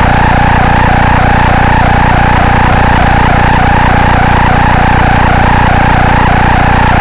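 Loud electrical buzz and interference from a malfunctioning onboard camera's audio, with a low hum and a warbling whine that repeats a few times a second.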